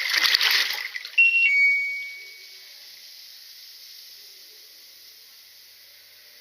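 A short rush of water, then a two-note electronic beep, the higher note first and the lower one ringing out for about a second. After that only a faint steady hiss.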